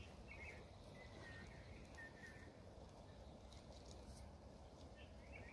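Near silence: faint outdoor ambience, with a few faint, high bird chirps in the first half.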